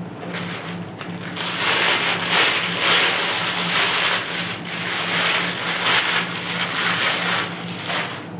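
Crinkling and rustling of plastic bubble wrap as binoculars are pulled out of their zipped carrying case and handled. It gets much louder about a second and a half in and keeps going in uneven crackly surges until near the end.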